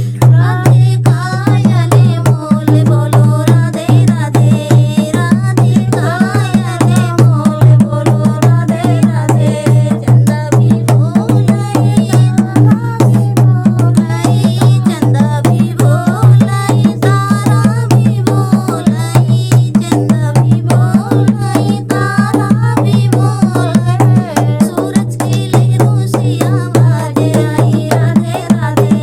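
Hindi devotional bhajan in folk style: a voice singing over a fast, steady hand-drum rhythm.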